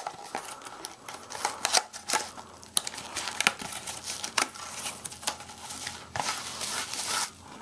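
Cardboard retail box and its slotted inner insert being opened and pulled apart by hand: rustling and crinkling with many sharp clicks and snaps, and a longer stretch of rustling near the end.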